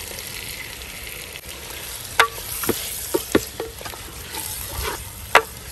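A ladle stirs a thick, wet chicken and spice mixture in a clay pot. From about two seconds in there are several sharp, irregular knocks as the ladle strikes the pot.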